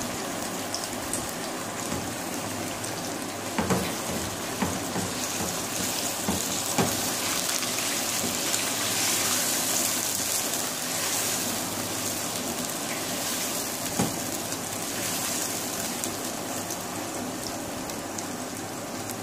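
Raw chicken pieces sizzling steadily in hot oil in a non-stick kadhai. A few sharp knocks come from the spatula against the pan as it is stirred.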